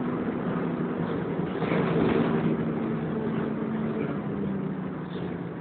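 Volvo B10BLE bus heard from inside the saloon, its engine running under way with a steady drone. The engine note drops a little about four seconds in, and the sound eases off near the end.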